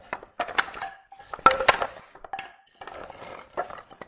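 Wooden pieces being moved and handled: clusters of knocks and clatter, with a few short creaks, coming in about four bursts.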